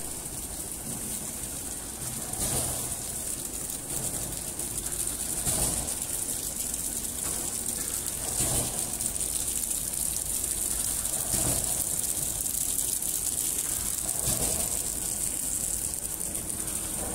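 Horizontal flow wrapping machine running: a steady high hiss, with a broad whoosh repeating about every three seconds as the machine cycles.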